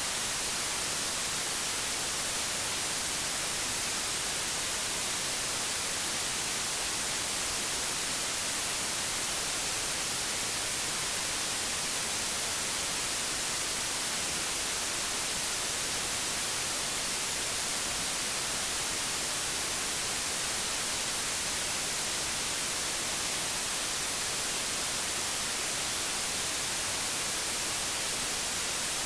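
Old television static: a steady, even hiss with its energy strongest in the treble, unchanging throughout.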